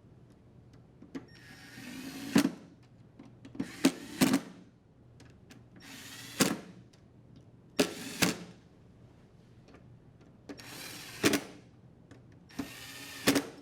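Cordless drill driver with a Phillips bit driving screws into the dryer door's latch and hinge bracket. It runs in about six short bursts, one screw at a time, and each burst ends with a sharp click.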